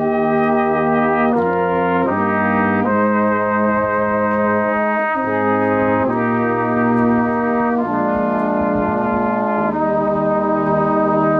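Brass band playing a slow, hymn-like piece in long held chords that change every second or two.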